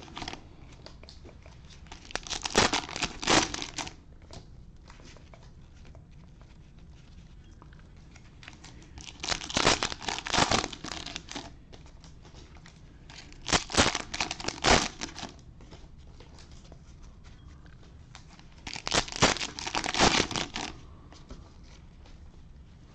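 Cellophane wrappers of football trading-card packs crinkling and tearing as they are opened, in four bursts of a second or two each, with fainter card handling between.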